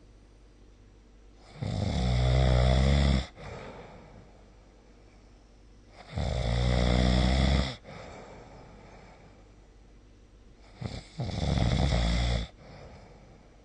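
A person snoring in a slow, regular rhythm: three loud snores about four and a half seconds apart, each lasting about a second and a half.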